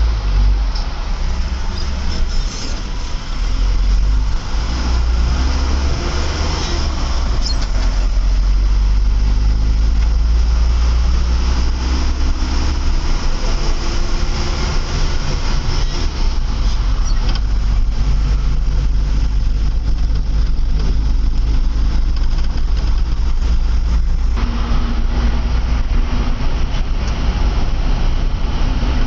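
Cabin sound of a moving road vehicle: a loud, deep engine rumble with road noise, the engine note rising and falling as it drives.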